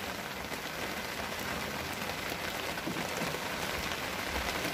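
Steady rain falling on lake water, a wooden boat and wet dock decking, with scattered drop ticks.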